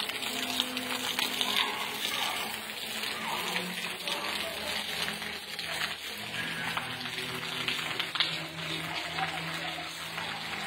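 Rain falling steadily on a flooded street, a continuous hiss of rain and splashing, running water.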